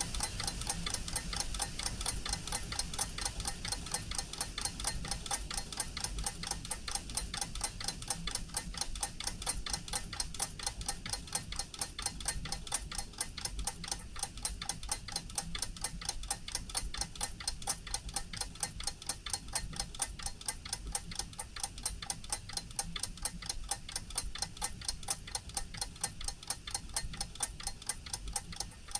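Leonidas watch's mechanical movement ticking: a fast, even run of several light ticks a second, held steady.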